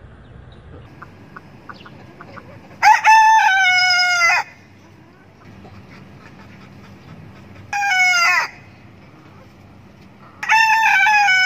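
Rooster crowing three times: a long crow, a short one, then another long crow starting near the end, each a loud pitched call that sags slightly in pitch. A few faint clucks come before the first crow.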